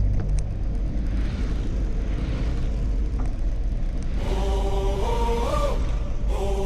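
Background music between the song's verses: a steady low bass with a hiss under it, joined about four seconds in by a wordless, chant-like sung melody.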